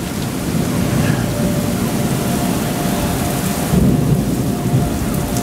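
Torrential thunderstorm rain pouring down, with thunder rumbling and swelling about four seconds in. A faint steady wail from the tornado warning sirens runs underneath.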